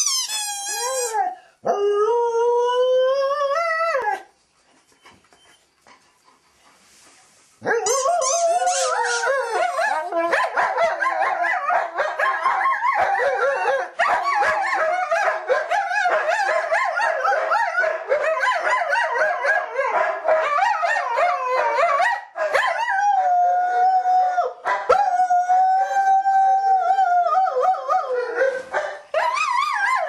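A dog squeaking a squeaky toy bone and howling along with it. High squeaks at the start are followed by a rising howl; after a short lull, continuous overlapping howls and squeaks build up, with a long steady howl held near the end.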